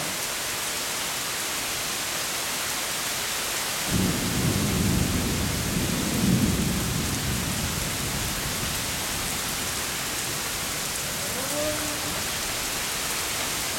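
Heavy rain pouring down steadily. A roll of thunder starts about four seconds in and rumbles for several seconds, loudest around the middle, before fading back under the rain.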